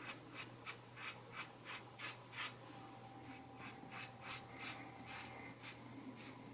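Single-blade razor scraping whiskers off the neck against the grain, in short quick strokes about three a second, fainter in the second half.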